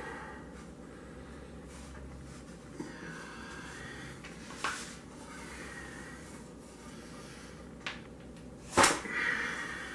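Frying pan's metal being bent by hand: a few sharp clicks as it gives, and one loud snap just before the end. Heavy, strained breaths come between the efforts.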